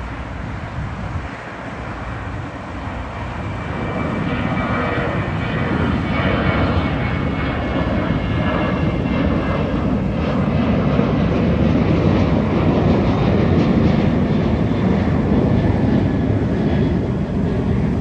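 Jet engines of taxiing airliners running, the noise building over the first several seconds and then holding loud, with a high whine that falls slightly in pitch midway.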